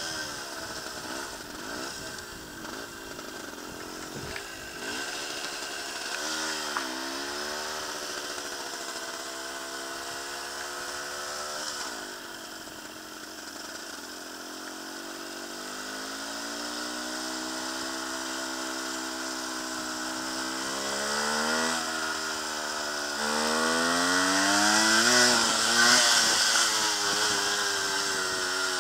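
1973 Suzuki TC 125's two-stroke single-cylinder engine running at low speed, its pitch rising and falling several times with the throttle, growing louder over the last few seconds.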